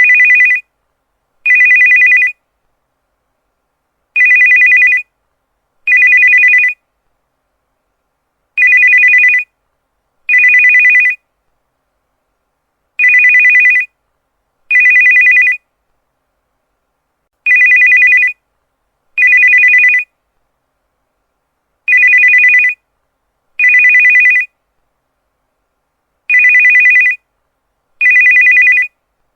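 Cell phone ringtone: an electronic warbling two-tone trill rung in pairs, ring-ring, each pair followed by a pause of about two and a half seconds, repeating steadily seven times.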